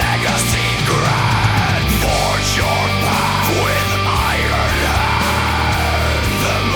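Instrumental passage of a melodic death metal song: heavy guitars with a lead melody that swoops up and down in pitch, at a steady loud level with no vocals.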